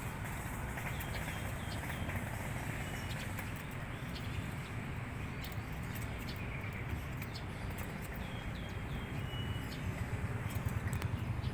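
A steady low rumble with a few faint, short chirps from a young canary and scattered light clicks; no full song.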